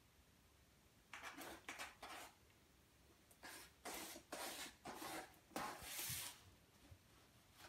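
A cat pawing and pushing a rolled-up cardboard roll across a wooden floor: a string of short scratchy rustles and scrapes, starting about a second in and growing louder toward the end.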